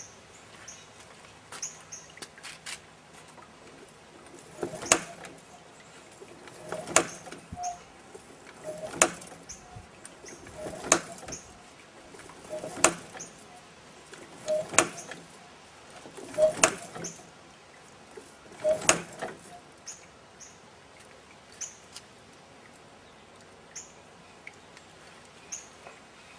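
Homemade Stirling engine with a car-tyre flywheel turning slowly, giving a sharp knock about once every two seconds, roughly once per revolution. The knocking starts about five seconds in and stops after about seven knocks.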